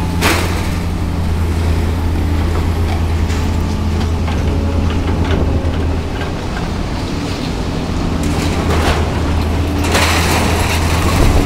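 Diesel engine of a scrap-handling machine with an orange-peel grapple, running steadily with a low drone. Short bursts of clatter come just after the start and again, louder, over the last second or two.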